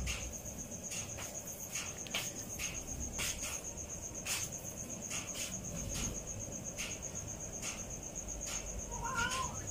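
Crickets chirping steadily: a continuous high, rapidly pulsing trill. Scattered short clicks come through it, and a brief two-note call sounds about nine seconds in.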